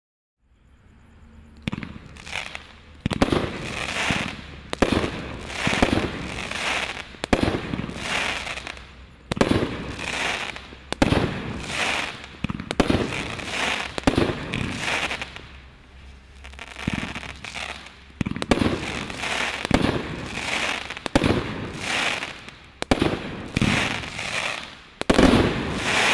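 Brothers Pyrotechnics 'Magicology' 500 g consumer firework cake firing its 21 shots in a row, about one a second. Each shot is a sharp report with a short trailing rush of noise as the shell breaks, and the loudest shot comes near the end.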